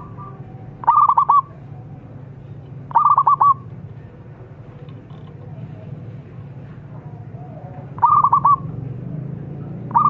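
Zebra dove (perkutut) cooing: short phrases of about four quick, staccato notes, each phrase half a second long, heard three times a few seconds apart, with a fourth beginning just at the end. A steady low hum runs underneath.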